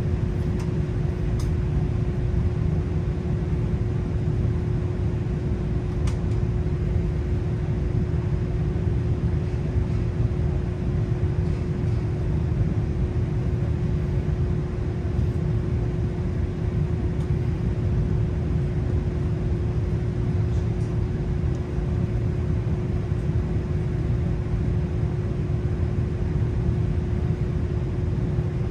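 Nagasaki Electric Tramway streetcar heard from on board: a steady low rumble with a constant hum at one pitch, and a few faint clicks.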